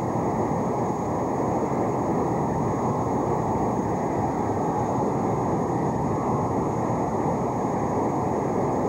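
Large convention crowd cheering and applauding steadily, heard on an old, muffled newsreel soundtrack, with a faint steady high whine from the tape.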